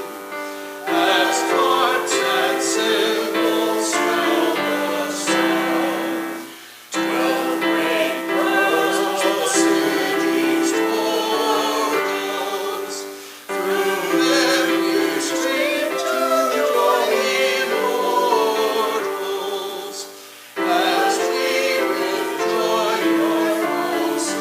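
Church choir singing with instrumental accompaniment, in phrases about seven seconds long with short breaks between them.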